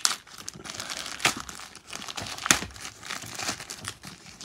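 Grey plastic mailing bag crinkling and rustling in irregular crackles as it is pulled open by hand. The sharpest crackle comes about two and a half seconds in.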